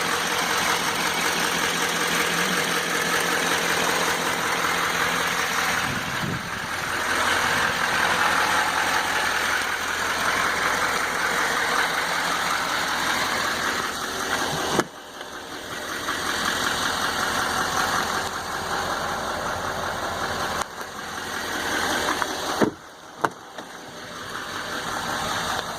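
6.6-litre Duramax turbo-diesel V8 idling steadily. The level drops abruptly about 15 s in and again about 23 s in.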